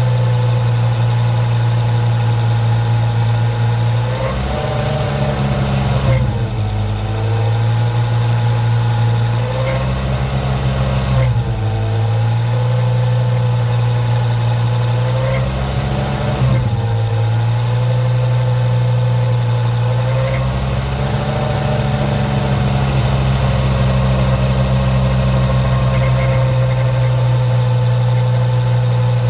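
Ford Focus ST's 2.5-litre turbocharged five-cylinder engine running at low revs with a steady drone, its pitch dipping and rising briefly several times as the revs change. This is the noise the owner hears at around 1500 rpm and is asking about.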